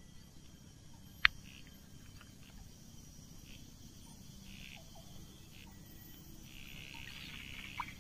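Insects chirping in short buzzing spells of about a second each, over a faint steady background, with one sharp click about a second in.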